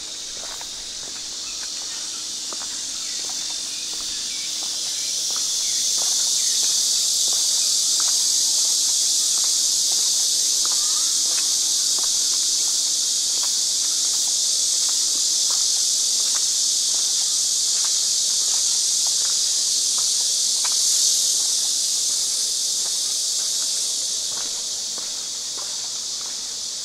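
Steady, loud, high-pitched chorus of insects, swelling about five seconds in and easing a little near the end, with footsteps of someone walking.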